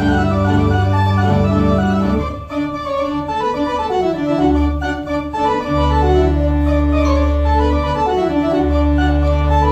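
Kimball theatre pipe organ played live: full sustained chords over deep held bass notes, with runs of notes moving up and down above them.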